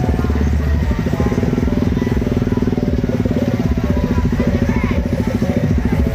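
Motorcycle engine running steadily with an even, rapid pulse, with faint voices behind it.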